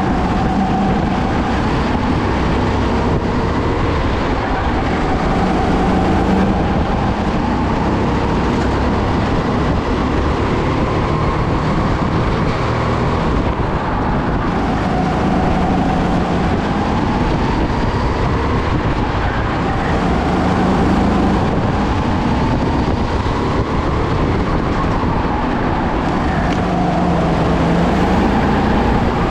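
Sodi kart engine heard from on board, its revs rising and falling again and again as the kart accelerates and slows through the corners of the track.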